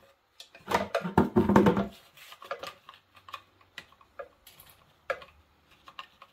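Metal tools and engine parts clinking and knocking in irregular taps, with a dense burst of clatter in the first two seconds, then scattered single clicks.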